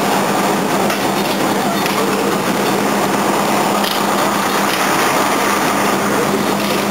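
A fire engine's motor and pump running steadily at a structure fire: a loud, even rush with a constant low hum.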